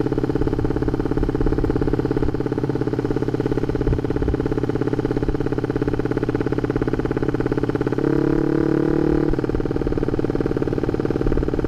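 Honda Sonic 150R's single-cylinder four-stroke engine running through a CLD Monster aftermarket exhaust while ridden slowly: a steady exhaust note, very noisy even at low speed, that brightens briefly about eight seconds in with a touch of throttle.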